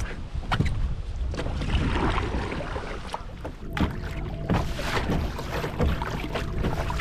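Kayak paddle strokes: a double-bladed paddle dipping and splashing in lake water with irregular knocks, while wind buffets the microphone with a low rumble.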